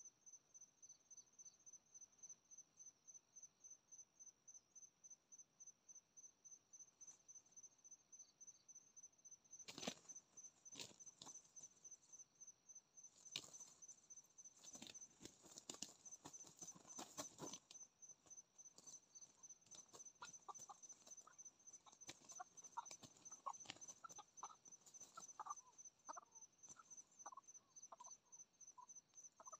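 Junglefowl scuffling and flapping their wings from about ten seconds in for several seconds, then a run of short clucking calls. Under it an insect chirps steadily, about two and a half high chirps a second.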